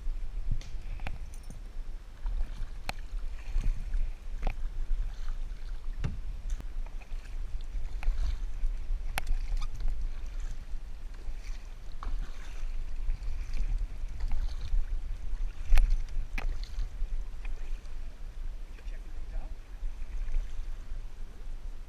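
Kayak paddling: paddle strokes through water with splashing, and sharp knocks now and then, over a steady low rumble.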